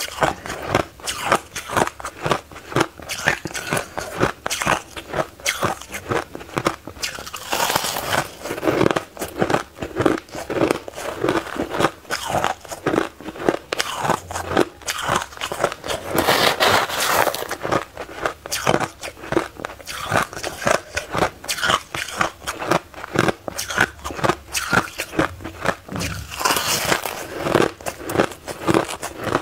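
Close-miked crunching and chewing of powdery freezer-frost ice, mouthful after mouthful, in dense irregular crunches several to the second.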